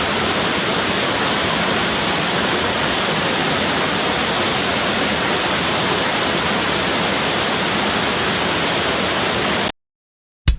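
Steady rushing noise of falling water, even and unbroken, that cuts off abruptly near the end.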